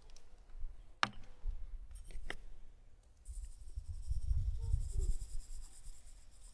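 Spices being sprinkled by hand from small clay bowls: a sharp light click about a second in and two more soon after, with faint scratchy sounds. In the second half a low wind rumble on the microphone and a faint hiss take over.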